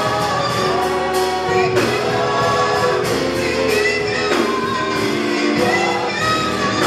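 Live gospel praise and worship music: women singing into a microphone over a band with a steady drum beat.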